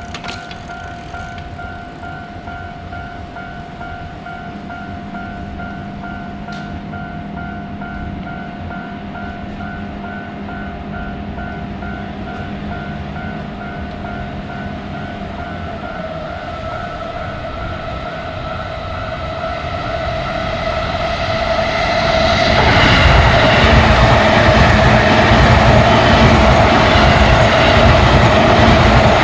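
Japanese level-crossing warning bell ringing with its evenly repeated electronic clang while a JR electric train approaches. The train grows louder and from about twenty-two seconds in passes close by, its rumble and wheel noise loud over the bell.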